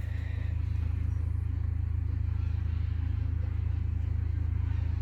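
Steady low engine drone, an even rumble with no change in pitch or level.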